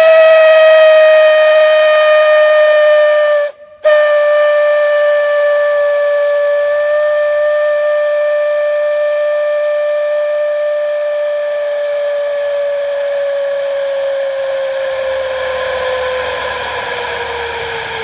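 A whistle blowing one long note over a rushing hiss. Its pitch sags slowly lower and the sound gradually softens. It cuts out for a split second just before four seconds in, then carries on.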